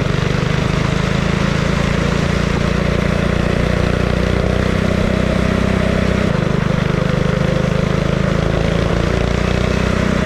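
Mini trike's Honda GX-type single-cylinder four-stroke engine running steadily under way. Its note shifts slightly about six seconds in.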